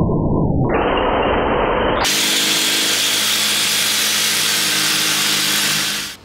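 Jigsaw cutting a metal rail. The sound is slowed down and dull at first, then comes up to normal speed in two steps by about two seconds in, where the saw runs steadily on the metal. It fades out just before the end.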